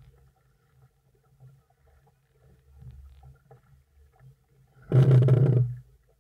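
Water splashing and sloshing against a camera at the water's surface: one loud rush lasting about a second near the end, after several seconds of only faint sounds.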